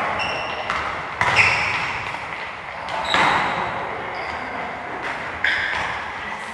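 Soccer balls being kicked and bouncing during youth soccer training: three sharp thuds about two seconds apart, with short high squeaks between them.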